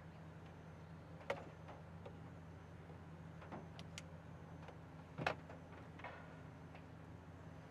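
Several sharp separate clicks from the pull-cord switch and plastic housing of a battery-powered hanging bulb light being handled, the loudest about five seconds in, over a steady low hum.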